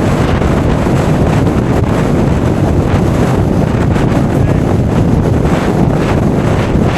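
Strong winter-storm wind blowing hard across the microphone in a steady, loud, low rumbling roar.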